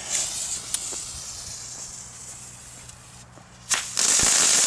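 Fuse of a Lesli Black Bulls firework hissing as it burns after being lit. About three and a half seconds later there is a sharp crack, then a loud burst of hissing and crackling with a few knocks as the firework goes off.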